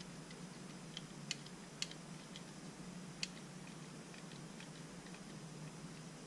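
Faint, scattered small clicks and ticks from handling a 1/32-scale diecast model car with a 3D-printed plastic chassis, a few sharper clicks in the first three seconds, over a low steady hum.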